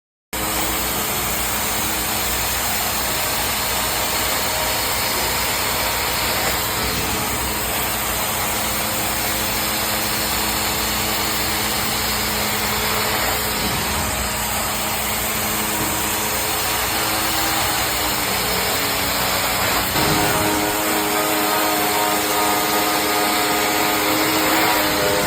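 Carpet-cleaning extraction machine running steadily, a loud rushing noise with a steady hum in it; about twenty seconds in the low rumble drops away and a higher whine comes through.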